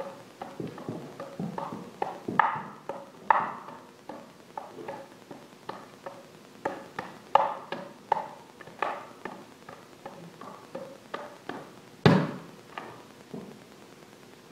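Juggling clubs clacking into hands as they are caught and thrown, an uneven run of sharp knocks, with one much louder thud about twelve seconds in.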